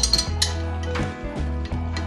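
Background music with a steady bass line, and a few sharp metallic clinks near the start.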